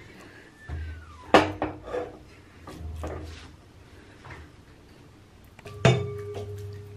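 Aluminium cooking pot being handled on a gas stove: a few scattered clanks and knocks. The loudest, near the end, leaves the pot ringing on with a steady tone.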